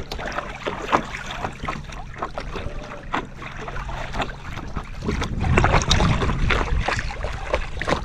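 Kayak being paddled across choppy water: irregular splashes of the paddle and water slapping against the hull. About five seconds in, wind buffeting the microphone grows louder.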